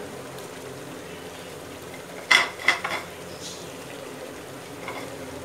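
Wooden spoon knocking against the side of an aluminium cooking pot while stirring fenugreek leaves into a thick curry. A quick cluster of three or four knocks comes about two seconds in and one lighter knock near the end, over a faint steady hiss.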